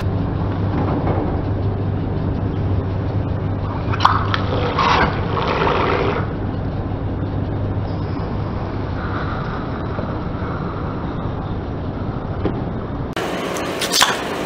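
Car tyre rolling onto two plastic tubes of white cream: about four seconds in they crack and burst, squelching cream out over about two seconds, over the steady low hum of the car. Near the end a sharp crack as the tyre presses on a plastic gel bottle.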